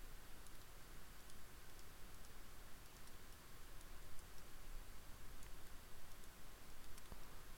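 A few faint, scattered clicks from working a computer's mouse and keys, over low room hiss.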